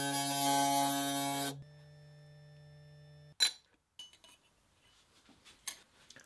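Router motor buzzing at high speed while its small bit cuts a brass plate, with a high hiss from the cutting. The hiss stops about a second and a half in and the motor runs on more quietly. Its sound cuts off a little after three seconds, followed by a sharp click and faint handling of the brass.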